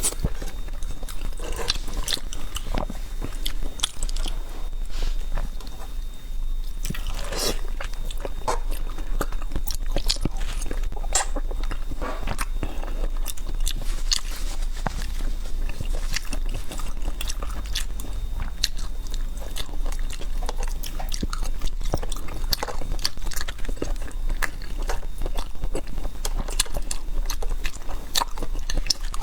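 Close-miked eating sounds from a mukbang: a person biting and chewing spicy food, with a dense, irregular run of wet mouth clicks and crunches.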